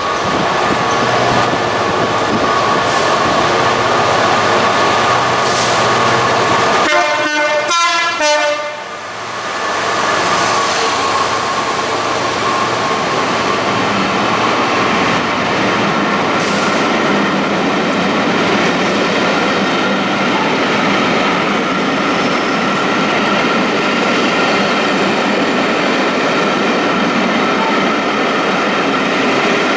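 Train running past at close range: a steady loud rumble with a thin whining tone held throughout. A brief pulsing, stacked tone sounds about eight seconds in.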